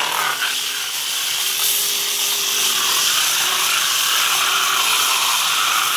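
Corded electric angle grinder with a sanding disc, running steadily as it grinds against pool plaster. A continuous motor whine sits over the scraping of the disc on the surface, sanding the peeling plaster down to prepare it for patching.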